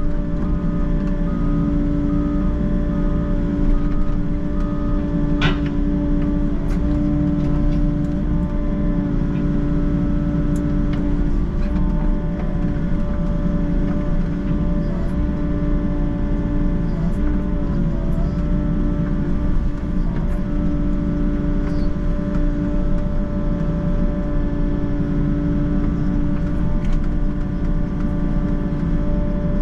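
Volvo excavator's diesel engine running steadily, heard from inside the cab, with a steady held whine over it. Scattered light clicks and one sharp knock about five and a half seconds in.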